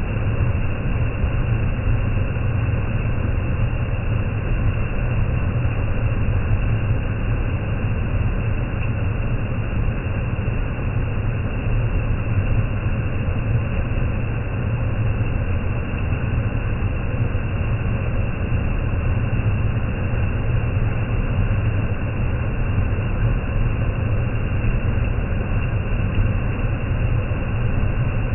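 Khlong Lan waterfall in heavy rainy-season flow: a loud, steady, low rush of falling water.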